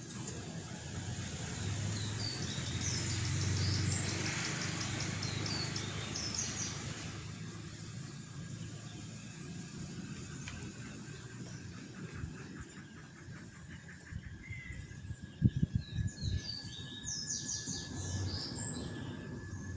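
Outdoor ambience with small birds chirping in quick runs of high notes, twice. A low rumble swells and fades over the first several seconds, and a few dull low thumps come about fifteen seconds in.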